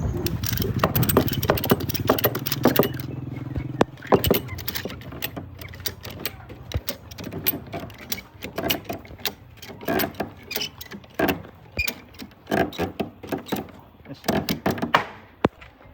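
A low engine-like hum runs for about the first four seconds and then stops. After it come irregular knocks, clatters and jangling rattles, with voices in the background.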